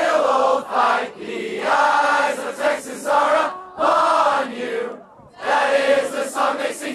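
A large crowd singing together in unison, with a brief break about five seconds in before the voices come back.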